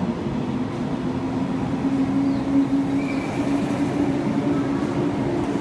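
JR 185 series electric train pulling out and gathering speed past the platform: a steady rolling noise of wheels on rails with a motor hum that rises slightly in pitch, then holds.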